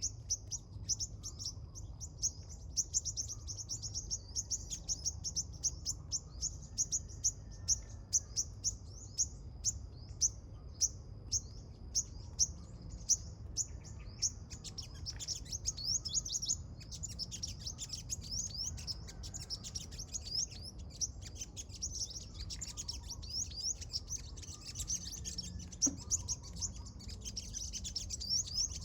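Small songbirds chirping in a dense, continuous stream of short high notes, with the chirps thickening into overlapping calls about halfway through. A steady low rumble runs underneath.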